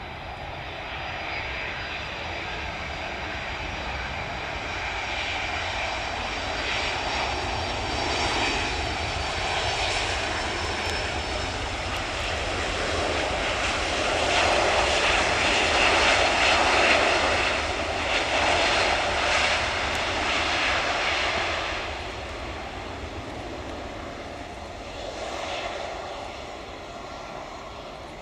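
Jet engines of a Boeing 767-300F freighter running as it rolls along the runway past the listener. The sound swells to its loudest about halfway through, then fades as the aircraft moves away.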